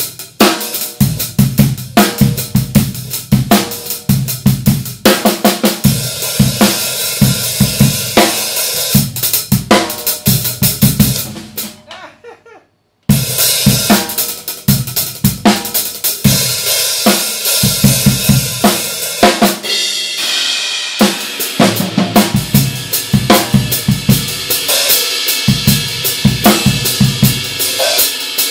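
Drum kit played as a groove: snare, bass drum and bright, high-pitched Paiste 2002 Sound Edge 14-inch hi-hats. The playing stops about 12 seconds in and starts again about a second later.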